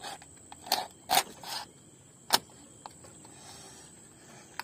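Cleaver chopping through a whole raw chicken's backbone on a wooden board: four or five sharp chops within the first three seconds. A steady high insect trill carries on behind.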